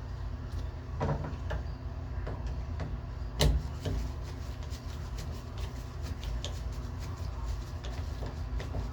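Small scattered clicks and knocks of screws and a tool being worked into the metal hold-down plate of a shower valve, with one sharper knock about three and a half seconds in, over a steady low hum.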